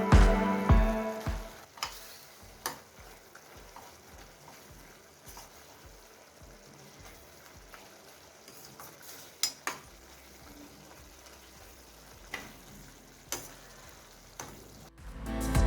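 Chicken frying in a kadai with a soft, steady sizzle, while a spoon stirs and every few seconds knocks sharply against the pan.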